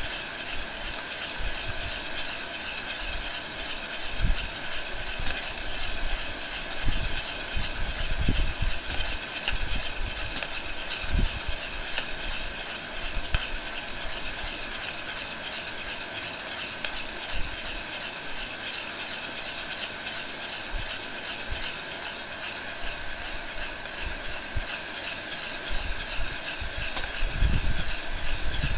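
Heat gun blowing hot air steadily into a metal bowl of roasting coffee beans, with the beans rattling and scraping against the bowl as a spoon stirs them continuously.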